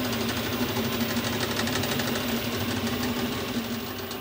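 Small metal lathe running under cut, turning a metal bar supported in a steady rest: a steady motor hum under a fast, dense crackle of cutting as chips come off the work.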